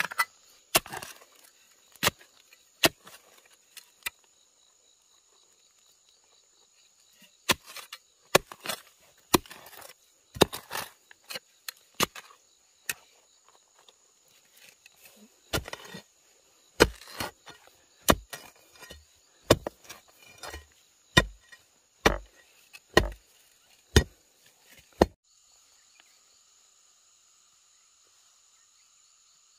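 A long-handled digging tool chopping into stony soil to dig a post hole: a string of sharp strikes, irregular at first, then about one a second, stopping about 25 s in. Insects buzz steadily underneath, heard alone after the strikes stop.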